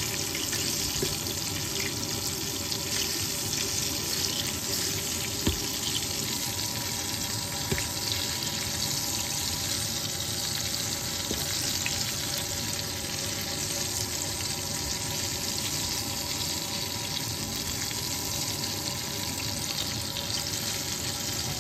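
Battered chicken pieces frying in hot oil in a stainless steel pan: a steady sizzle, with two light clicks about five and eight seconds in.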